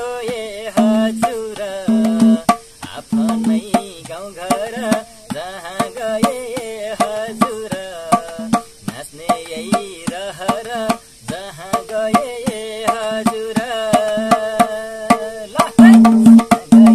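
Madal hand drum played in a steady folk rhythm under a man's voice singing a wavering folk melody. Near the end the drumming grows louder and a bamboo flute (bansuri) comes in.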